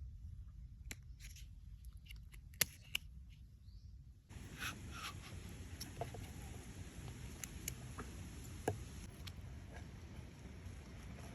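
Scattered small clicks, taps and scrapes of handling over a faint low rumble, with one sharper click about two and a half seconds in.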